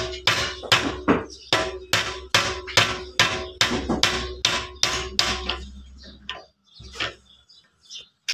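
Metal hammer blows, about two and a half a second, each with a short ring, over a steady hum. The strikes stop a little over five seconds in, and a few fainter knocks follow.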